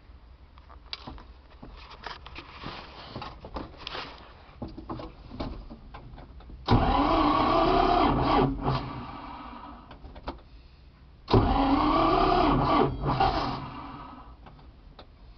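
A Władimirec T-25 tractor's two-cylinder air-cooled diesel being cranked by its electric starter on a cold winter start: two cranking attempts of about two seconds each, the first about seven seconds in and the second about eleven seconds in, each dying away without the engine catching. Scattered light clicks and rattles come before them.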